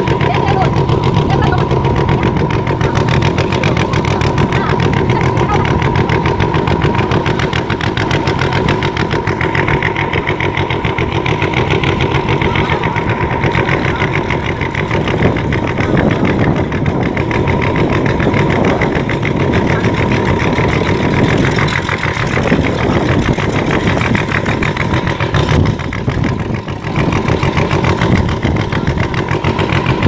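Boat engine running steadily, with a steady whine on top of its rapid firing.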